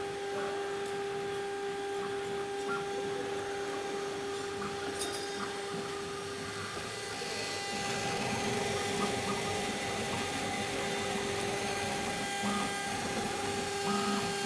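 Spindle motor of a 1200Y CNC rotary engraving router running with a steady high whine; about halfway through, the sound grows louder and rougher as the machine works the cylindrical workpiece.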